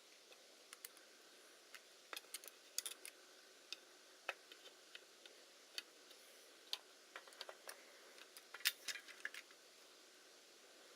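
Small hard clicks and taps at an irregular pace, like small tools and metal parts being handled, with a brief cluster of louder clicks about three-quarters of the way through.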